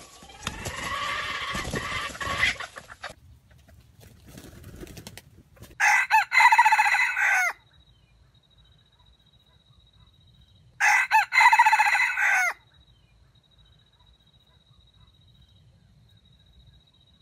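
Junglefowl rooster crowing twice, about five seconds apart, each crow short and broken. A rougher, noisier sound fills the first three seconds.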